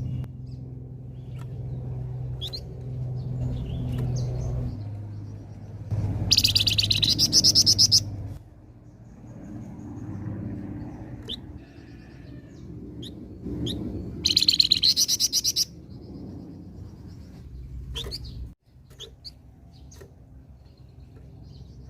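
A flamboyan songbird singing. Two loud, rapid, high trilling bursts of about a second and a half each come about 6 and 14 seconds in, with short scattered chirps between them, over a low steady hum.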